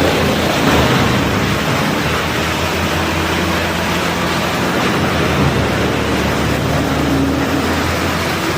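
Wood sawdust crusher running: a steady, loud machine hum under a dense rushing noise, slightly louder near the start.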